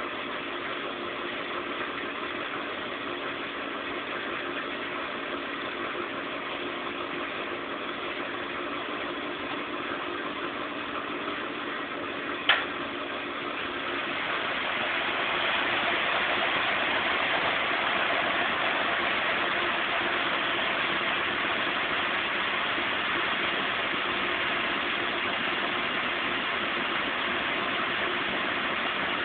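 Zanussi Z 630 washing machine running steadily through its final rinse-and-spin program. A single sharp click comes about twelve seconds in, and soon after, the machine's running noise grows louder and more hissing and holds there.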